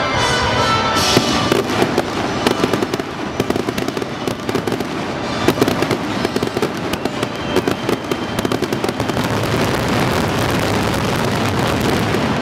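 Aerial fireworks display: many shells bursting and crackling in rapid succession, the barrage building about a second in and running dense and loud.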